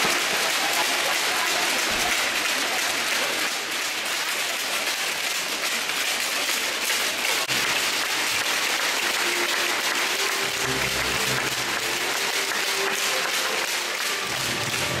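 Large arena audience applauding continuously. Faint background music comes in during the second half.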